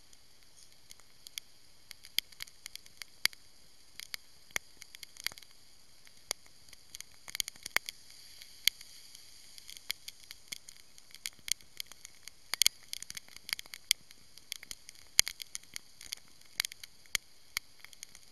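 Raindrops hitting the car in irregular sharp ticks, some loud, over a faint steady hiss, heard from inside the car.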